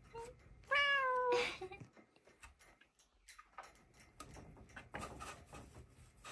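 Domestic cat meowing: one clear call about a second in, dropping slightly in pitch, from a cat that wants to be lifted down off a cage top. Soft scattered clicks and rustling follow as the cat moves about.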